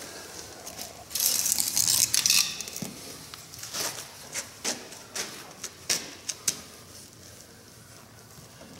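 Handling noise while jumper cables are being hooked up: a loud rustle lasting about a second and a half, then a scatter of sharp metallic clicks and knocks.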